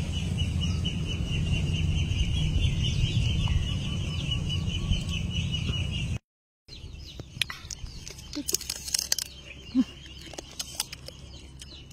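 Hens clucking over a steady low rumble and a constant high-pitched hum. A brief dropout comes about six seconds in, and after it the sound is quieter, with scattered clucks and small clicks.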